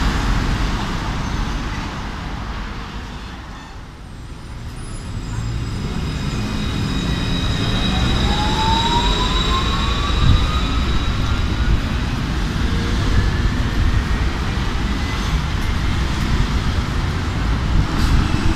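Alstom Citadis 302 tram at a stop, then pulling away: its traction motors give a single whine that rises steadily in pitch as it accelerates, over a steady rumble of street traffic. The overall sound is at its lowest about four seconds in.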